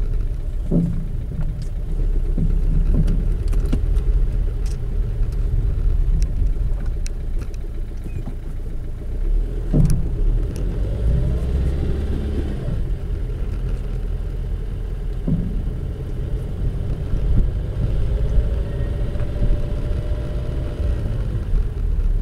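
Inside a car driving over a bumpy road: a steady low road and tyre rumble, broken by a few sharp knocks, about a second, ten seconds and fifteen seconds in. The knocks are the strong noise from the rear of the car that marks the fault being demonstrated.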